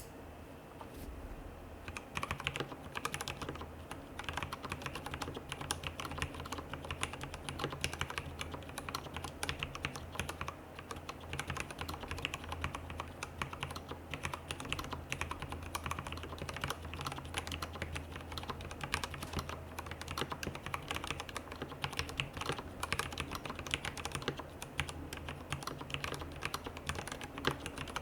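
Continuous typing on a RAMA WORKS KARA mechanical keyboard with lubed Cherry MX Black linear switches, a polycarbonate plate with silicone dampening and GMK doubleshot ABS keycaps. It is a dense, rapid stream of keystroke clacks, sparse at first and filling in about two seconds in.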